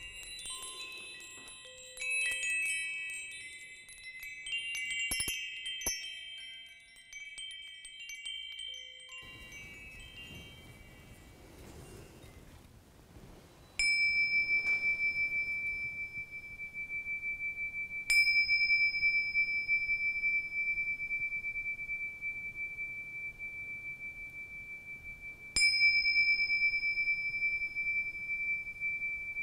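High-pitched metal wind chimes tinkling, several bright overlapping tones that die away. Then, about halfway through, a pair of tingsha cymbals is struck together three times, each strike leaving one long, pure ringing tone.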